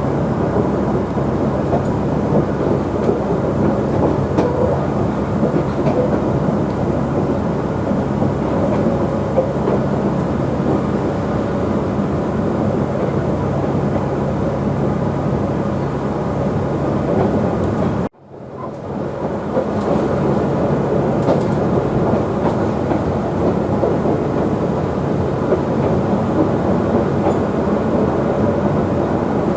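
QR 2000 class diesel rail motor running along the track, a steady drone of engine and wheels on rails. About eighteen seconds in, the sound cuts out abruptly and fades back up within a second or so.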